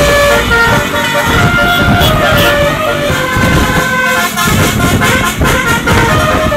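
Tour bus's Basuri telolet horn playing a tune: a run of held notes stepping between pitches, over a steady low rumble.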